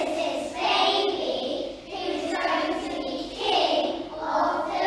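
A large group of primary-school children singing together in a school hall.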